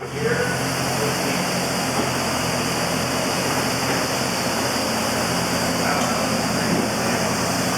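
An engine running steadily, a loud, even drone with a low hum that starts abruptly from silence.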